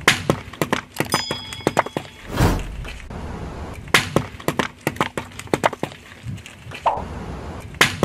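Irregular crunching and sharp cracking of brittle things being crushed. A brief high ringing tone comes about a second in, and a short rushing swell about two and a half seconds in.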